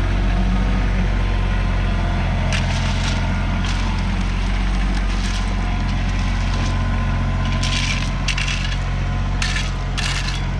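Tractor-excavator engine running steadily, with short crunching and scraping sounds of rock and dirt being moved, coming several times and more often in the second half.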